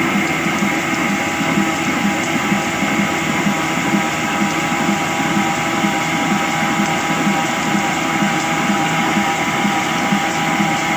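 Old black stationary diesel engine running steadily with a slow, even beat of about two or three thumps a second.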